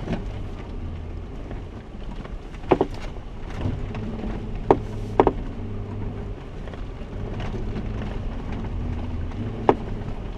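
Jeep engine running steadily at low crawling speed, heard from inside the vehicle on a rough off-road trail, with a few sharp knocks about three, five and ten seconds in.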